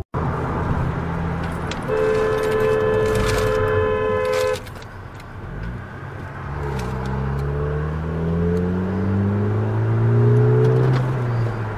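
Steady road noise heard from inside a car on a highway. A two-tone car horn sounds for about two and a half seconds. A few seconds later an engine accelerates hard, its pitch rising steadily for about four seconds.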